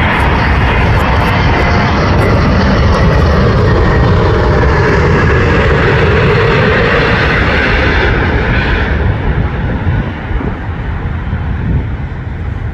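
Airbus A380 on final approach passing low overhead, the noise of its four jet engines loud and steady, its pitch sliding down as it goes by. After about nine seconds the sound thins and fades as the airliner moves away toward the runway.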